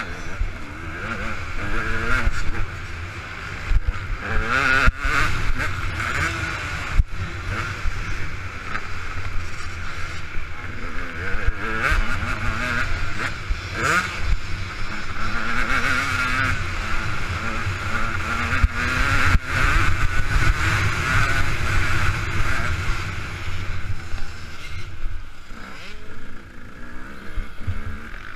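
KTM 200 EXC's two-stroke single-cylinder engine being ridden hard round a dirt track, its revs rising and falling again and again as the throttle opens and shuts. A heavy wind rumble sits on the microphone, with a few sharp thuds over bumps and landings.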